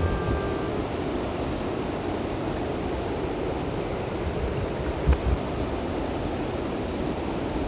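Steady rush of a fast-flowing river with rapids, heard from midstream, with a couple of low thumps about five seconds in.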